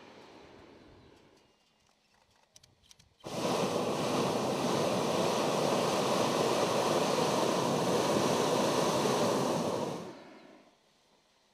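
Hot-air balloon's propane burner firing: a loud, steady rushing noise that starts abruptly about three seconds in, holds for about seven seconds, then dies away. A few faint clicks come just before it.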